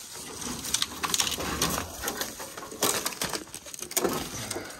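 Footsteps crunching through dry grass and debris, an irregular run of crackles and crunches.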